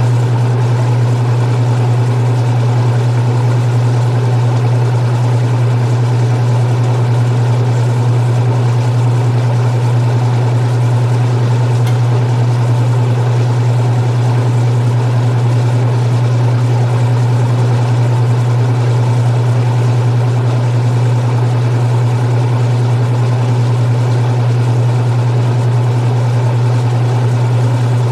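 Restored 1978 Maytag LA806 belt-drive washing machine running through its cycle, its motor giving a steady, unchanging low hum under a wash of mechanical noise.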